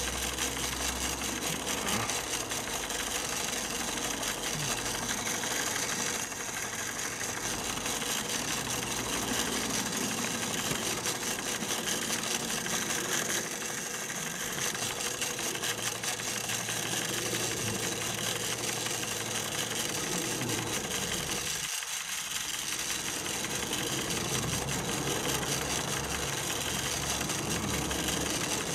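Märklin 4122 toy vertical live steam engine running steadily, its flywheel driving an Arnold tin blacksmith drive model: a fast, even mechanical clatter of rapid repeated strokes.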